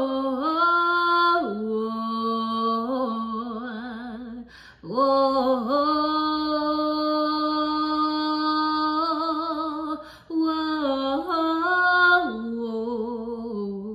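A woman's solo voice singing a gospel worship song without accompaniment: wordless vocal runs with vibrato, holding one long note from about five seconds in to about nine seconds, with short breaks to breathe.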